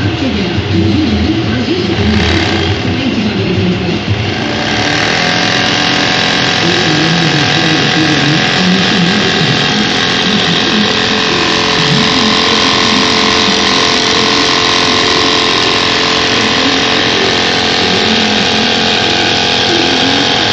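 Bag sewing machine (MLS-5002-HD, two-needle, four-thread) starting about four seconds in, then running steadily at speed: a loud, dense mechanical hum of many steady tones with hiss.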